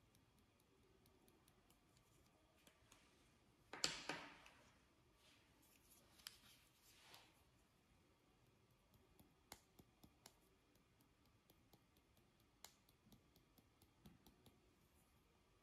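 Small plastic glitter tubes handled and shaken over a bowl of clear slime: a short burst of shaking about four seconds in, two softer shakes a couple of seconds later, then scattered light clicks and taps against otherwise near silence.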